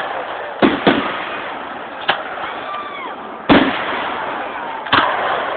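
Fireworks exploding: five sharp bangs, the loudest about three and a half seconds in, over a steady crackle of bursting shells.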